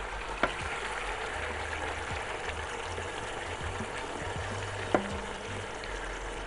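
Raw chicken pieces frying in hot oil in a pot: a steady sizzle, with two light taps of the spatula and metal tray about half a second and five seconds in.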